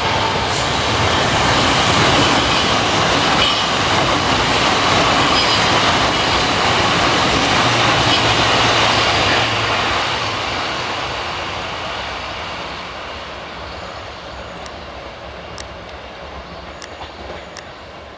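Tobu Isesaki Line electric train running over a level crossing. Loud for about the first ten seconds, then fading steadily as it moves away.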